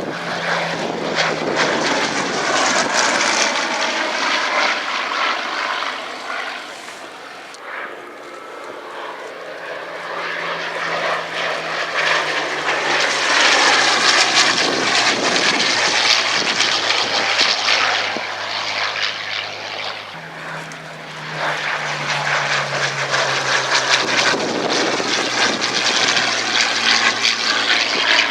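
Hawker Sea Hurricane's Rolls-Royce Merlin III V12 engine and propeller in display flight. It swells and fades three times as the fighter makes repeated passes, and its engine note drops as it goes by.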